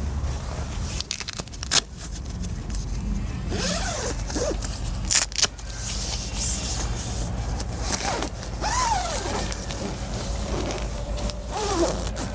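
Camping gear being handled during setup: rustling and scraping, with a couple of sharp clicks and a few short squeaks, over a low steady hum.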